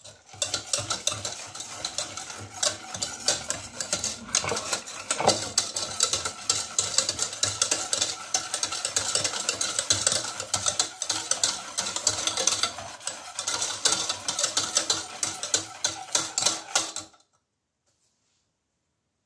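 Wire balloon whisk beating an egg and sugar mixture in a stainless steel saucepan: a fast, continuous rattle of the wires ticking and scraping against the metal pot, stopping abruptly near the end.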